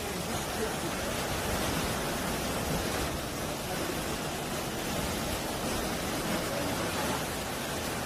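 Sea waves washing over and breaking against a rocky shoreline: a steady rush of surf and foaming water with no single loud crash.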